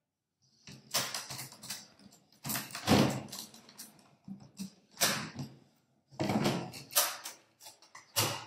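Metal-cornered DJ turntable flight case being handled and opened: a string of clicks, clunks and rattles as its hardware and lid are worked, the loudest knock about three seconds in.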